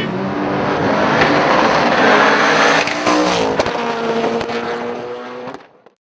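Twin-turbo 330 cubic inch small-block Ford V8 in a 1988 Ford Mustang running hard at high revs, loudest in the middle, then fading out and cutting off just before the end.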